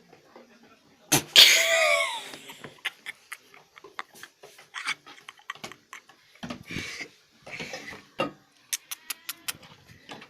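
A goat sneezes once, sharp and loud, about a second in, followed by several softer snorting bursts. The sneezing is set off by cigarette smoke.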